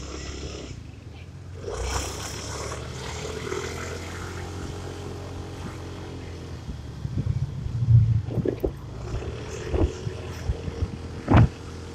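Motor scooter engine running steadily under way, with road and wind noise. From about two-thirds of the way in come a few short loud bursts, the loudest near the end.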